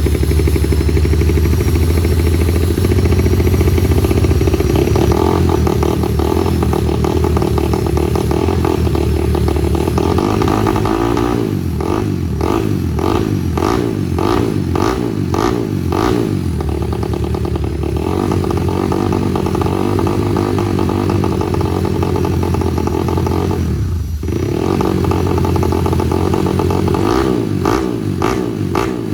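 Four-stroke trail motorcycle engine running loud through its exhaust, its note pulsing rapidly for several seconds mid-way as the throttle is worked, dropping briefly, then pulsing again near the end.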